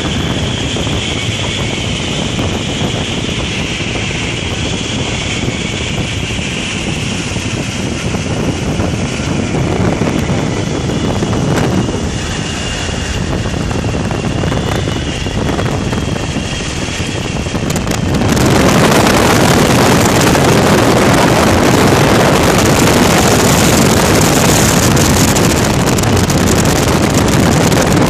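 Radial engine of an open-cockpit biplane running in flight, buried in heavy wind rush on the microphone. About 18 seconds in, the noise jumps suddenly louder and harsher and stays that way.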